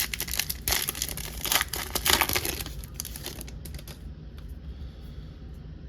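Plastic trading-card pack wrapper crinkling and tearing in a dense run of crackles for about three and a half seconds, then dying down to faint handling.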